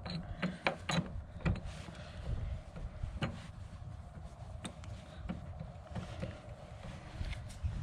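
Small metal clicks and taps as socket-head bolts are started by hand into an antenna mount, with several quick clicks in the first second and a half and a few single clicks later, over low handling rumble.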